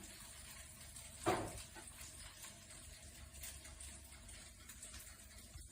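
Faint steady hiss of room tone, with one short soft noise about a second in.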